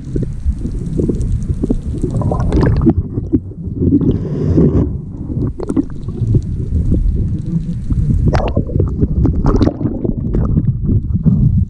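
Muffled underwater rumble and gurgling of water moving over a camera underwater, with scattered sharp clicks and knocks.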